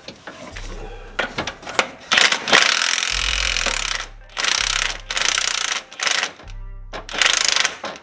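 Cordless impact wrench hammering in four bursts of roughly half a second to two seconds each. It is driving the centre bolt of a harmonic balancer puller to pull the balancer off the crankshaft.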